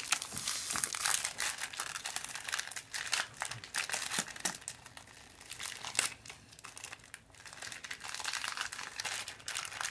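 Candy wrapper crinkling and crackling in irregular handling as a piece of candy is worked out of it, with a few sharper crackles.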